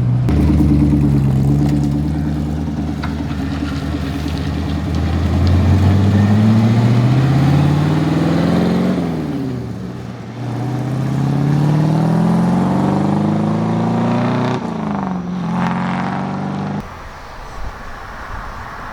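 V8-swapped Datsun 280Z's carbureted V8 accelerating hard through the gears. The engine pitch climbs steadily for several seconds and drops at an upshift about nine seconds in. It climbs again and drops at a second shift near fifteen seconds, then the engine sound falls off sharply about seventeen seconds in.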